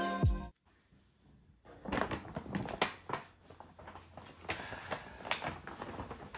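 Background music cuts off abruptly about half a second in, followed by a second of dead silence. Then quiet rustling and small knocks of a paper gift bag and a cardboard shoe box being handled.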